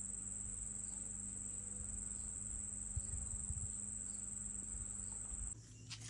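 An insect's steady, high-pitched trill in the background, holding one even pitch and cutting off suddenly near the end. A few faint low bumps come about halfway through.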